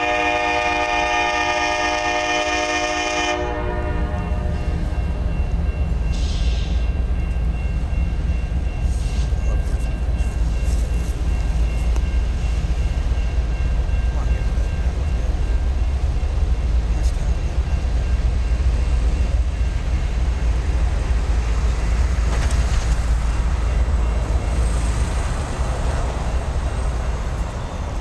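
Norfolk Southern SD60E diesel locomotive's air horn sounding a chord, which cuts off about three seconds in. After that comes the steady low rumble of the approaching lead locomotives' 16-cylinder EMD 710 two-stroke diesel engines pulling the train.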